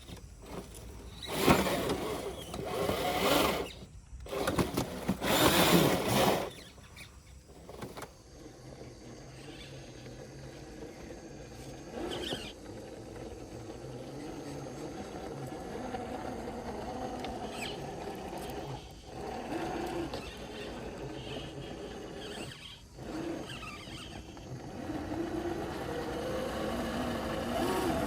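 Scale RC crawler's 550 brushed electric motor and geared drivetrain whining as the truck crawls, rising and falling with the throttle. Several loud rushing noises come in the first six seconds or so.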